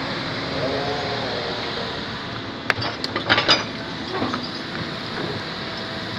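Excavator working: its diesel engine runs steadily, with a short rising-then-falling whine about a second in and a cluster of sharp knocks and clanks around the middle.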